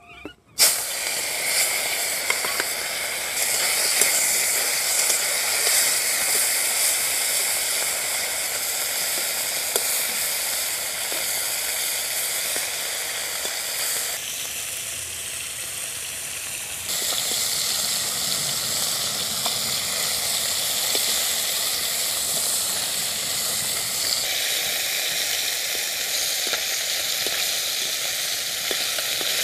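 Small river fish (gang mourala), rubbed with salt and turmeric, frying in hot mustard oil in a kadai: a steady sizzle that starts suddenly about half a second in as the fish go into the oil.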